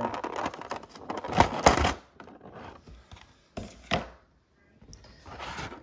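Clear plastic blister tray of an action figure being handled: crinkling and clicking plastic, with two sharp clacks about a second and a half in and a couple of single knocks around four seconds.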